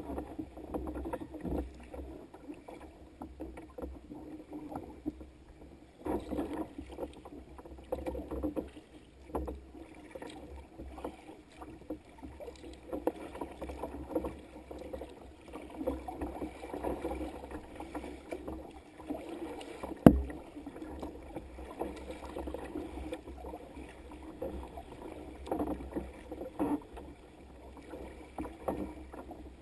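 Choppy sea water sloshing and splashing irregularly against the hull of a moving sea kayak. One sharp knock stands out about two-thirds of the way through.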